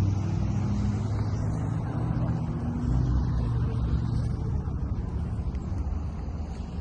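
A motor vehicle engine idling: a steady low hum with a slight waver in pitch.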